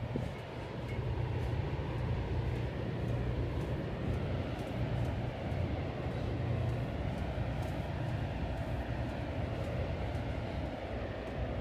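Steady low mechanical rumble of an oil drilling rig's machinery, running without a break.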